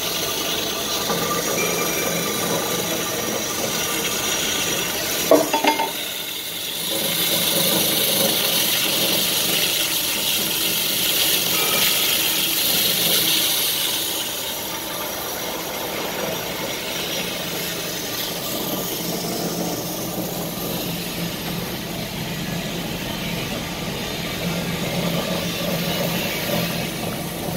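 Uzay 420 horizontal band saw running, its blade cutting steadily through a thick steel pipe. A single sharp metal clang with a short ring comes about five seconds in.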